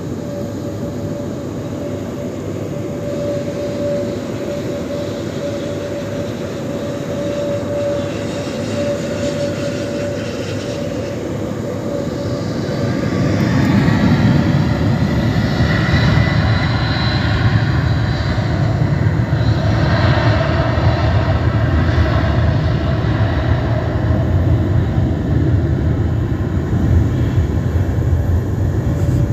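Boeing 737 jet engines running on the runway: a steady whine over a rushing noise, which swells about halfway into a louder roar with a deep rumble that then holds.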